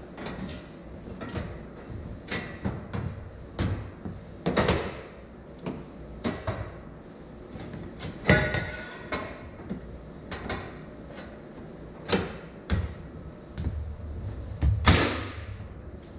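Steel square-tube frame being pushed and shifted by hand: a string of irregular metal clanks, knocks and scrapes, some ringing briefly, the loudest near the end.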